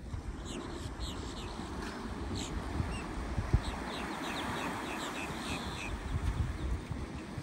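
Gulls calling in a run of short, high calls, over wind buffeting the microphone and small surf washing onto the beach, which swells around the middle.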